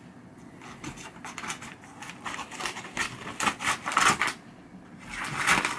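Scissors snipping through a paper mailing envelope in a quick run of cuts, followed by a louder rustle of the paper near the end.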